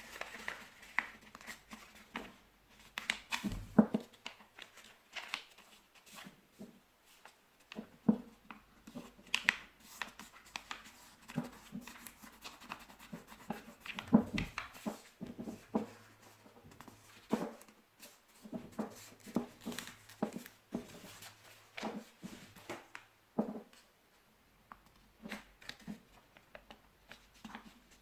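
A sheet of paper being folded and creased by hand into a paper airplane: irregular rustles and short crisp taps as the folds are pressed down.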